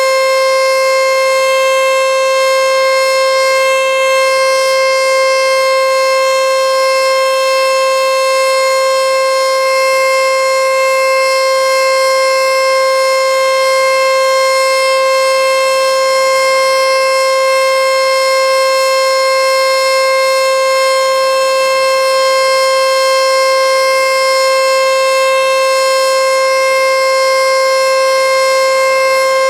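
Federal Signal nuclear-plant emergency warning siren sounding during its annual full test. It holds one steady, loud tone with a strong series of overtones, and the pitch does not change.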